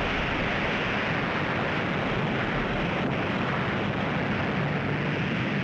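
Steady rushing roar of an atomic bomb blast, unbroken and even in level.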